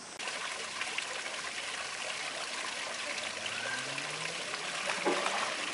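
Steady trickling and running of water.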